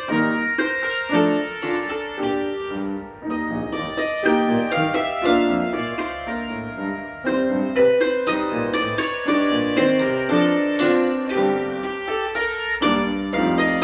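Cimbalom played with hammers: a steady stream of quickly struck notes that ring on and overlap.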